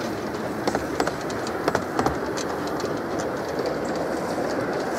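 Miniature railway passenger carriages rolling past on the track: a steady rumble of the wheels, with irregular clicks from the wheels over rail joints.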